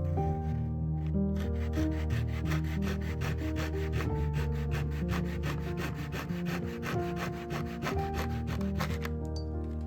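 Wood being sanded by hand in quick, even back-and-forth strokes, about five a second, starting a second or so in and stopping shortly before the end, over background music.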